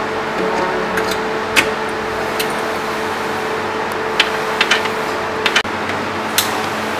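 Scattered sharp metallic clicks and taps from a hand tool working on a flatbed printer's metal frame and adjustment parts, over a steady electrical hum.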